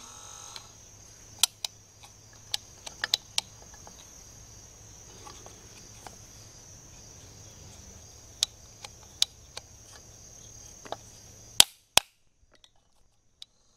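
Sharp clicks and knocks from working the rotary speed switch knob and tapping the switch plate of an old ElectroPal 12-volt trolling motor; the switch is intermittent, and the tapping is to get it to make contact. Crickets chirp steadily underneath.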